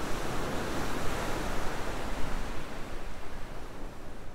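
Rushing whoosh of an outro sound effect, swelling about a second in and fading away near the end.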